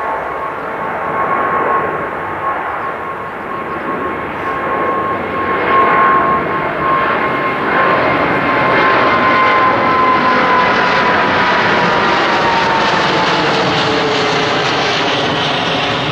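Boeing 787-8's GEnx-1B turbofan engines running on the runway: a steady jet roar with a high whine that slides slightly lower in pitch. It grows louder and brighter about six seconds in as the engines power up for the takeoff roll.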